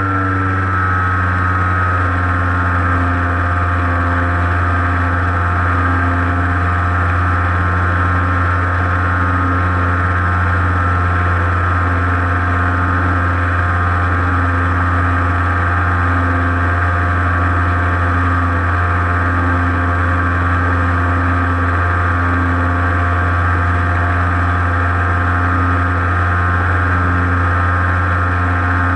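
Model airplane's motor and propeller running steadily in flight, heard from the camera on board the plane. The pitch eases down slightly in the first second or so, then holds steady.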